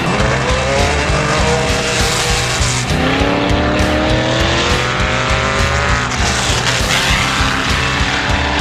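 Off-road race vehicle's engine accelerating, its pitch climbing for about three seconds and dropping about six seconds in, over background music with a steady beat.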